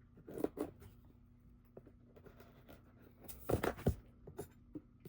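Knife slicing through packing tape on a cardboard box: short scraping strokes about half a second in, then a louder pair of cuts around three and a half seconds in, with small clicks of the blade on cardboard in between.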